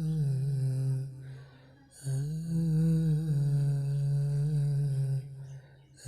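A voice humming a slow, wordless melody in long held notes, breaking off briefly about a second and a half in and again near the end.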